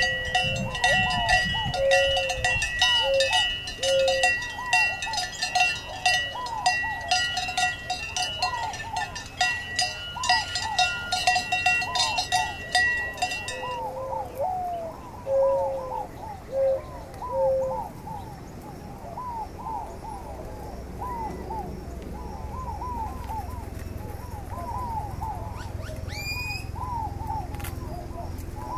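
Cowbells on grazing cows clanking and ringing irregularly, stopping abruptly about halfway through. Birds chirp in short repeated calls throughout, and a low steady rumble comes in later, with a brief rising whistle near the end.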